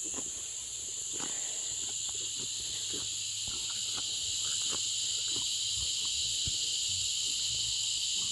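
A steady, high-pitched chorus of insects, with a few faint scattered taps underneath.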